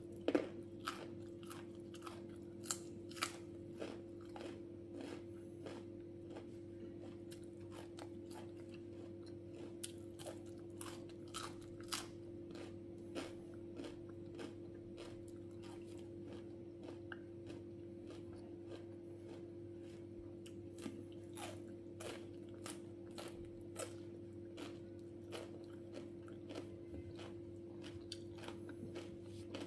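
Close-up chewing and biting of crisp raw vegetable slices, cucumber among them: a run of sharp wet crunches, several a second, with a steady low hum underneath.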